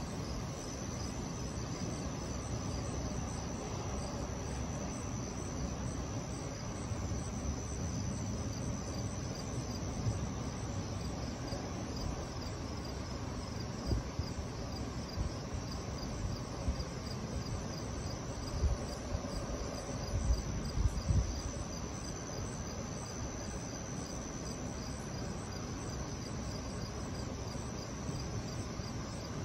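Crickets chirping steadily in a high, even trill, over a constant low rumble with a few brief low thumps in the middle.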